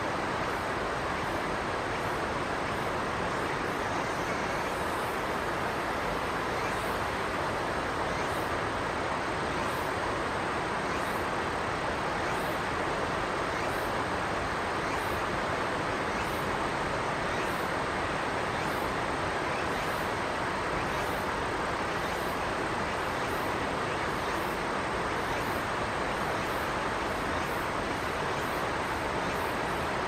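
Steady rushing of a river, an even noise with no break.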